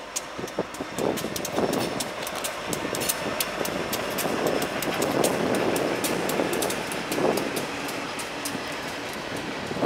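Freight train passing close by behind its diesel locomotives, steel wheels clicking sharply and irregularly over the rail joints. The rumble of the locomotives and cars grows louder as the train draws level.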